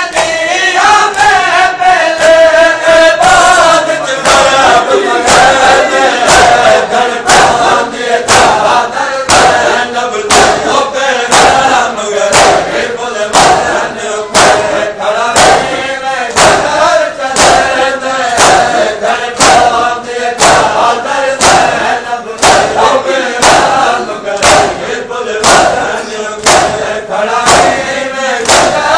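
Men chanting a noha together while a crowd of mourners beats their chests in matam: sharp open-hand slaps on chests in a steady rhythm, nearly two a second, under the chanting.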